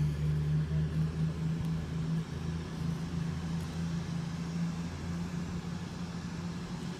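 Class 222 Meridian diesel multiple unit's engines running as it pulls away from the platform: a steady low drone that slowly fades.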